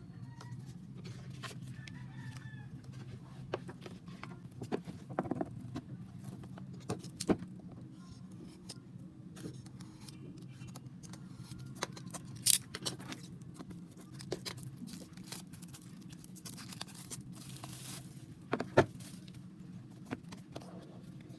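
Album packaging being handled during an unboxing: scattered clicks, taps and rustles of plastic and paper over a steady low hum.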